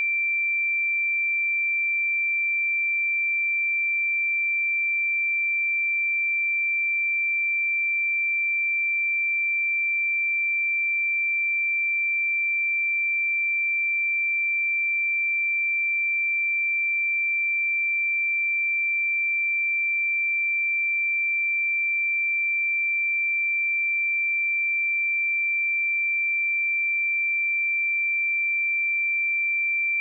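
Steady 2351 Hz pure sine-wave test tone, a single unbroken high-pitched note at constant level.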